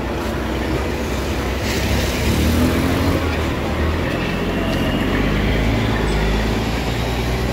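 Stopped semi-truck's diesel engine idling, a steady low hum.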